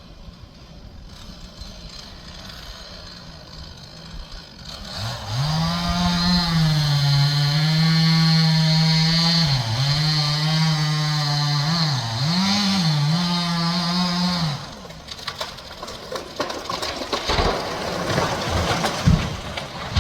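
Chainsaw running at full throttle through a cut for about ten seconds, its pitch dipping briefly a couple of times, then dropping off. A few sharp knocks follow near the end.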